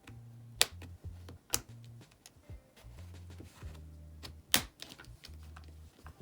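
Clicks and light taps of prying tools and picks working an iPhone 8's screen loose from its frame, with three sharp clicks standing out, over a low hum that comes and goes.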